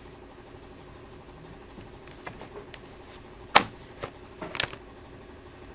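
End cap being worked onto the end of an aluminum running board: a few light clicks and knocks, then one sharp click about three and a half seconds in, followed by a short cluster of knocks.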